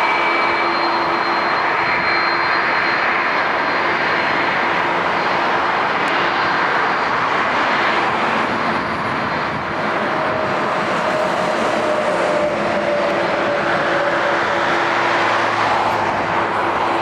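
Airbus A330-202 jet engines at departure power, a loud steady roar with a few steady tones through it. Around the middle a tone slowly falls in pitch as the aircraft goes by.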